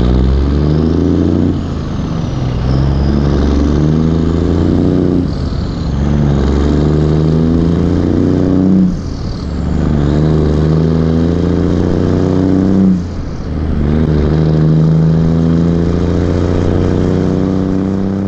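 Backhoe's diesel engine running steadily at high revs, its note dipping briefly about four times.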